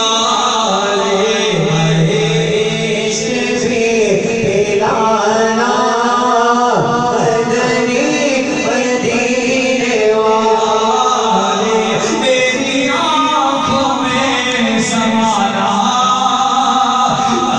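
A man reciting a naat, an Urdu devotional poem, in a melodic unaccompanied voice, amplified through a microphone, with long held notes that bend and glide.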